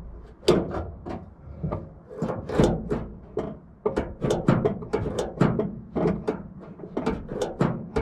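Irregular sharp clacks and knocks, several a second, from the RB25DET's throttle linkage being worked by hand in the engine bay. This is the throttle that was catching on the bonnet and sticking.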